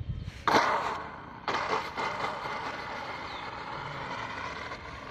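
RC model airplane's motor and propeller whining as the plane passes low and close. It is loudest about half a second in, surges again about a second later, then fades steadily as the plane moves away.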